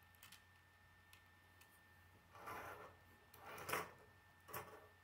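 Plastic K'nex pieces being handled and rubbed against each other and the tabletop: a small tick near the start, then three short scraping rubs in the second half, the middle one loudest.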